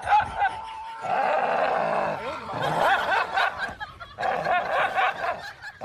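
People laughing, in short repeated bursts.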